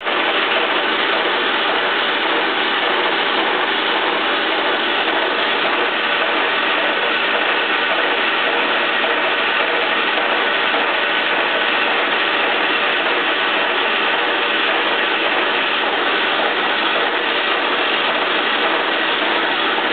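Soviet 1K62 lathe running steadily at about 100 RPM, its gear train whirring, while the tool takes a light finishing cut on a cast-iron gear case with coolant.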